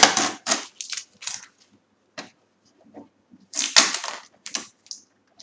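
Blue packing tape being peeled off the plastic casing of an HP Deskjet 1510 printer: short crackly rips in two runs, one at the start and another from about three and a half seconds in, with a few light clicks between.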